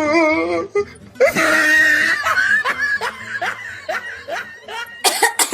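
A person laughing: a loud outburst about a second in, then a run of short, repeated laughs.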